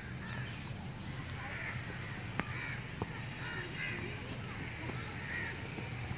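Outdoor ambience of a barefoot football kickabout on grass: a steady low rumble with faint, scattered children's voices, and two sharp knocks a little over half a second apart, about two and a half seconds in, from the ball being kicked.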